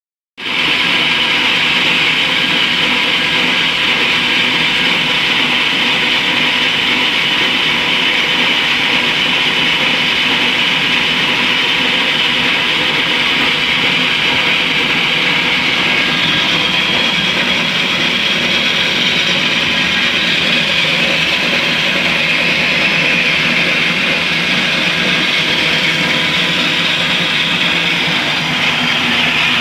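Homemade band saw running steadily, its motor and moving blade giving a constant whirring drone.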